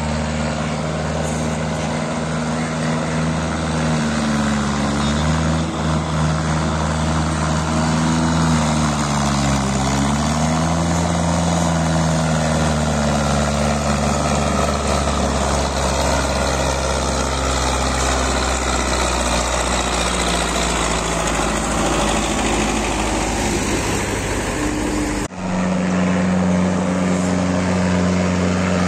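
Diesel tractor engine running under a heavy load. Its note rises and falls a couple of times, then steadies. About 25 seconds in it cuts abruptly to a steadier engine note.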